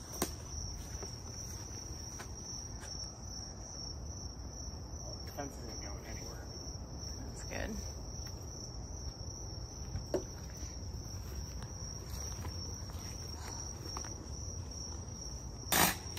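Insects trilling in one steady high tone throughout, over a low outdoor rumble, with a few faint knocks. Near the end comes a short, loud burst of noise.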